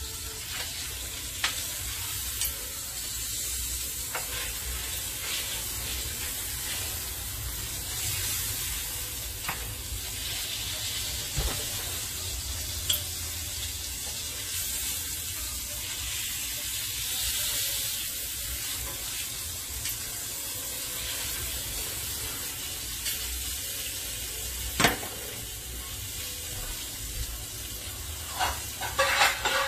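New York strip steaks sizzling steadily in olive oil in a hot carbon steel pan, with a few sharp clicks through it, the loudest late on.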